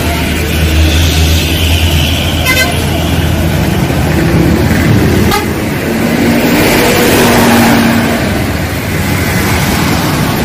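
Large diesel bus engine running close by as the bus pulls in, a steady low hum for the first few seconds. Then passing road traffic grows louder, with a short horn toot.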